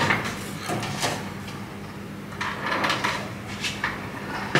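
Irregular short scraping and clicking handling noises from tools at a soldering bench, a cluster of them in the middle, over a steady low hum.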